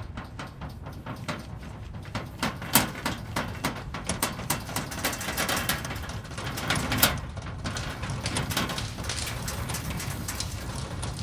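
Earthquake rumbling sound effect: a steady deep rumble under a rapid, irregular run of rattling and cracking clicks. The clicks grow busier and louder in the middle, with sharp cracks about three seconds in and again about seven seconds in.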